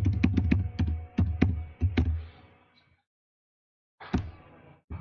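Typing on a computer keyboard: a quick run of about a dozen keystrokes that stops a little over two seconds in, then a moment of silence and a brief faint noise near the end.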